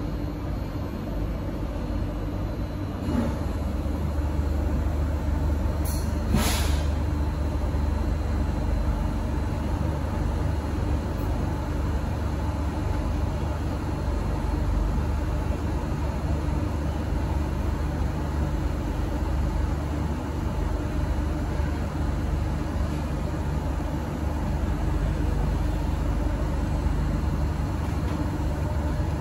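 Steady low hum of a stationary C151A metro train car's onboard equipment, with the doors open at the platform, growing louder about three seconds in. A short hiss of air comes about six seconds in.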